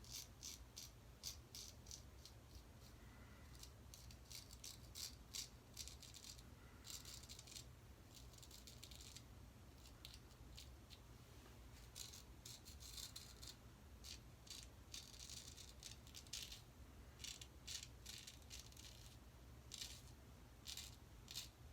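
Faint scratching of a Weck Sextoblade shavette's blade cutting a day's stubble, in quick short strokes that come in runs with brief pauses between them.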